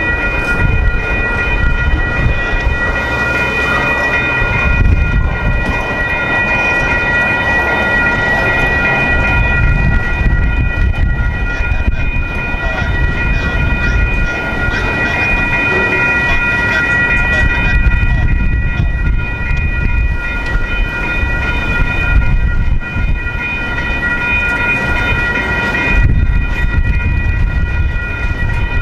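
Railroad crossing bell ringing steadily over the low rumble of two freight trains of boxcars and tank cars rolling past side by side on parallel tracks.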